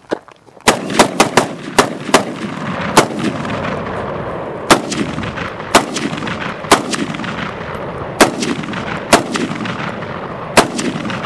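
AR-15 pistol firing steel-cased ammunition in semi-automatic: about a dozen sharp shots, a quick string of six in the first couple of seconds, then slower shots about one a second. Each shot is followed by a long rolling echo.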